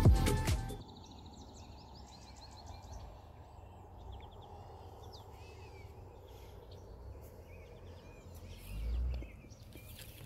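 Background music cuts off within the first second. Then songbirds chirp and trill over faint steady background noise, with a brief low wind rumble on the microphone about nine seconds in.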